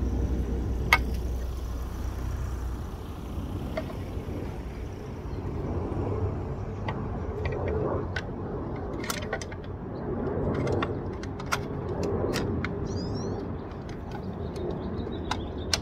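Metal locking pin clicking and scraping against the Thule Hullavator Pro's roof-rack mounting bracket as it is worked into line with the lock hole: scattered sharp clicks, most of them in the second half, over a low steady background rumble.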